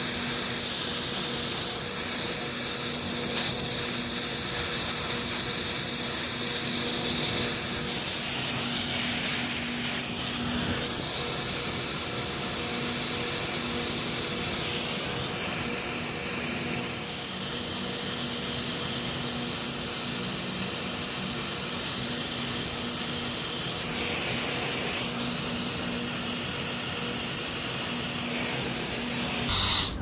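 Air-acetylene brazing torch burning with a steady, loud hiss as it heats a rebuilt copper refrigerant-line joint on an AC condenser coil for brazing; the flame cuts off near the end.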